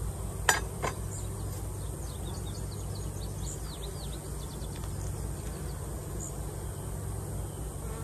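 Honeybees buzzing steadily around an open hive, with two sharp knocks about half a second in and a run of short high chirps in the middle.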